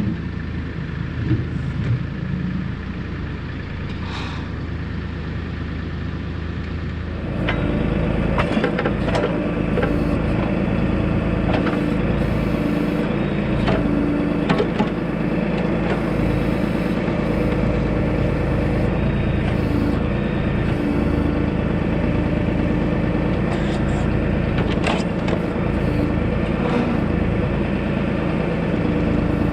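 Tractor engine running steadily; about seven seconds in it gets louder and works harder, with scattered knocks as it digs and moves dirt.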